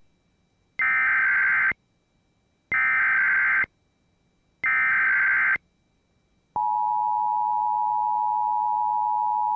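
Emergency Alert System SAME header: three bursts of warbling digital data tones, each about a second long, followed about six and a half seconds in by the steady two-tone EAS attention signal (853 and 960 Hz sounded together), which marks the start of a new alert.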